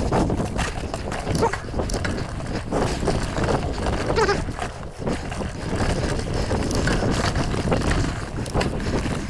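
Mountain bike rolling over a rocky trail: tyres crunching over rock and dry leaves and the bike rattling with many small knocks, over a steady low rumble of wind on the camera's microphone.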